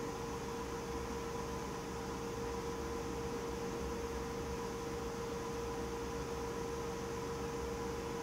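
Steady electrical-type hum with a constant mid-pitched tone over a faint even hiss.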